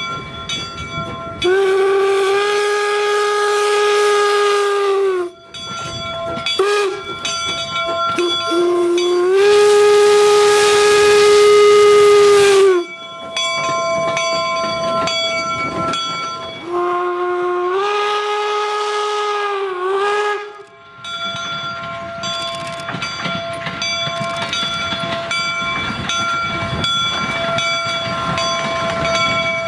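A replica 1860s 4-4-0 steam locomotive blows its steam whistle: a long blast, a few short toots, then two more long blasts. Each blast slides up into pitch and sags at the end. After the last blast the locomotive runs on past with a steady hiss and clatter.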